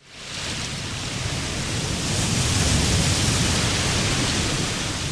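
Steady rushing noise of water, fading in at the start and swelling a little in the middle.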